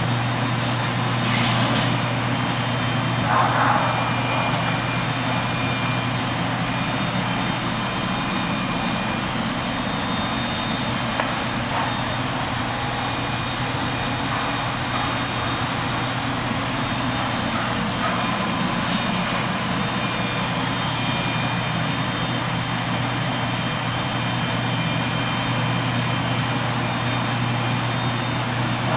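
Steady industrial machinery running: an even mechanical noise with a strong low hum and faint steady high tones, broken by a few brief knocks in the first few seconds.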